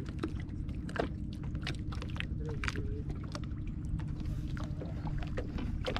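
Ambience aboard a small wooden fishing boat on calm water: a steady low rumble with many small, irregular clicks and knocks, and a faint distant voice briefly about two and a half seconds in.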